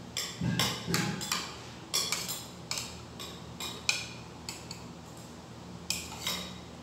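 Metal spoon clinking and scraping against a ceramic plate while scooping up rice, in a string of short, sharp clinks, with chewing between them.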